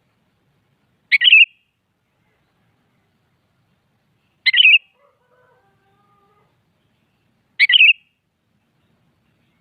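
Sooty-headed bulbul giving a short call phrase three times, once about every three seconds, each phrase under half a second long.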